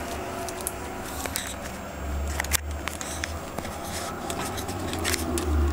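A hamster crinkling and tugging a tissue in its plastic cage: scattered small clicks and scratchy rustles. Underneath is a low rumble from the camera being handled close to the cage.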